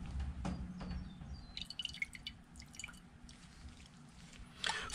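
Alcohol dripping and plinking in a ceramic bowl and squishing in a plastic syringe as it is drawn up, in small scattered ticks and drips. A short loud hiss comes near the end.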